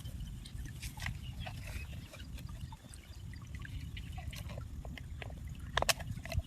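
Water trickling and splashing in small scattered drips and splashes, with a sharper splash near the end, over a steady low rumble.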